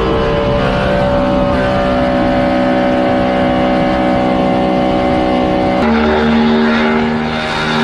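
Car engine sound effect: a steady engine drone at a held pitch, its tone changing abruptly about six seconds in, with the pitch starting to fall near the end.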